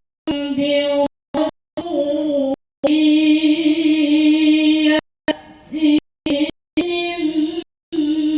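A woman's voice reciting the Qur'an in melodic tilawah style, holding long, steady, ornamented notes without accompaniment. The sound cuts out abruptly to silence several times.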